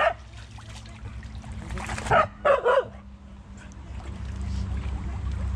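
Hunting dog barking, three quick barks about two seconds in.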